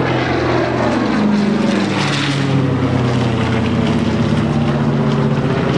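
Twin piston engines of a WWII twin-engine bomber droning as it flies past overhead. The engine pitch shifts as it goes by, and a rushing noise swells about two seconds in.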